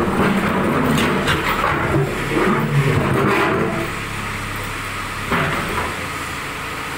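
JCB 3D backhoe loader's diesel engine revving under hydraulic load as the backhoe arm moves the heavy bucket, then easing to a steadier, quieter run after about four seconds.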